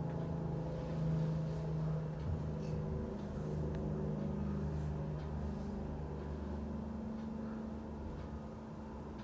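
Garbage truck's engine running, its pitch stepping up and down as it works.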